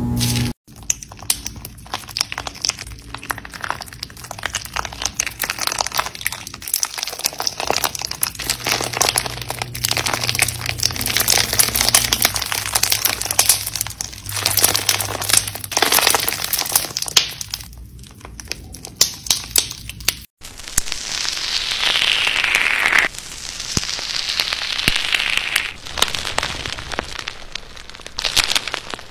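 Slime being squeezed and stretched by hand: dense crackling and clicking from a slime packed with small plastic beads. After a sudden cut about twenty seconds in, it turns to softer crinkly squishing of a fluffy foam slime, with two falling hisses.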